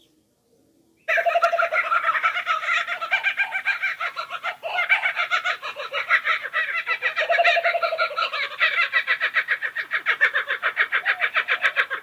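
Laughing kookaburra calling: a long, rapid, rhythmic run of cackling laugh notes that starts about a second in and carries on without pause.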